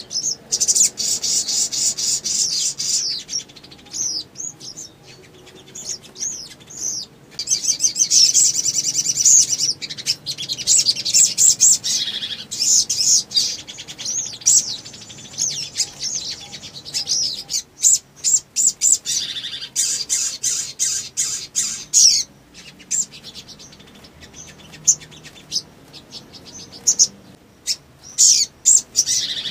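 Male sunbird (sogok ontong) singing in rapid, high-pitched trilling and chattering phrases, with long dense runs broken by short chips and pauses.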